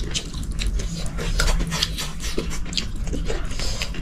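A person chewing and biting into food, with irregular clicks and crunches.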